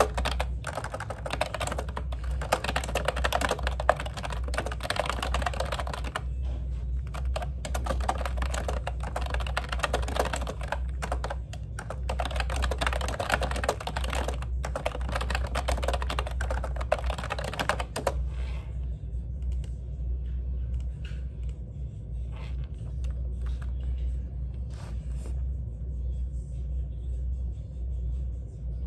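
Typing on a retro-style keyboard with round, typewriter-like keycaps: a fast, continuous clatter of keystrokes that thins out to a few scattered key presses about two-thirds of the way through.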